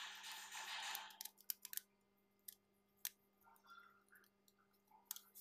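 Soft scraping for about a second, then a few scattered light clicks: a screwdriver working the terminal screw on a push-button contact block while a wire is fastened. A faint steady hum lies underneath.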